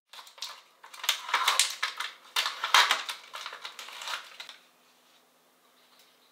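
Plastic packaging crinkling and crackling as it is handled and opened, in a dense run of sharp crackles that stops about four and a half seconds in.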